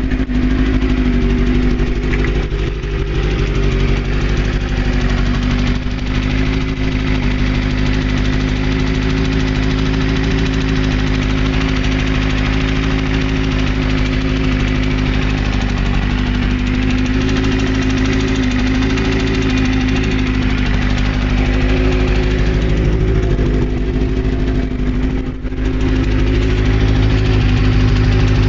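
Kawasaki ZZR400 inline-four motorcycle engine running steadily at idle with a rhythmic knock from inside the engine; the knock comes from the clutch basket.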